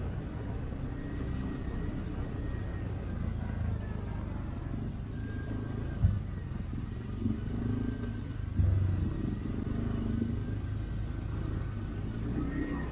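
CFMoto 450 ATV running on a trail with a steady low rumble, with a sharp thump about six seconds in and a smaller knock a few seconds later.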